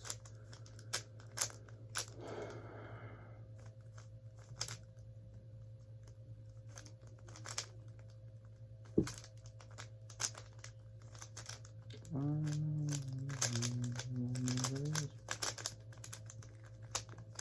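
Rubik's cube being turned in a solve: irregular quick plastic clicks and clacks of the layers, with a short rustling scrape about two seconds in. For about three seconds near the end a person hums a few steady notes over the turning.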